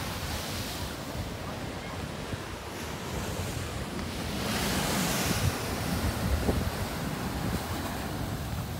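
Ocean surf breaking and washing on a sandy beach, with wind buffeting the microphone as a low rumble. A wave surges louder about halfway through.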